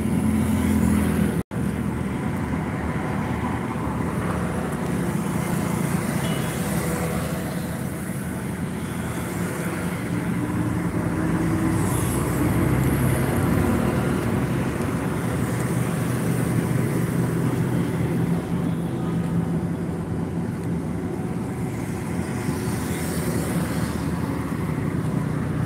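Road traffic: motor vehicles driving past with engines running, a steady mix of engine hum and road noise.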